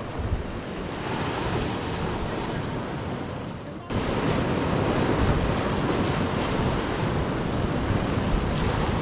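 Sea waves breaking and washing over rocks, with wind buffeting the microphone. About four seconds in the sound dips briefly and then comes back louder.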